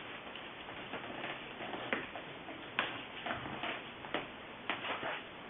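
Joints cracking: several sharp clicks and pops, roughly a second apart, over a steady hiss.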